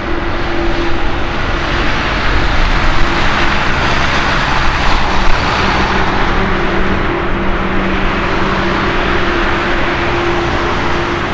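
Boeing 787-8's GE GEnx turbofan engines running at low taxi thrust: a steady jet rush that swells slightly a few seconds in, with a low steady hum underneath.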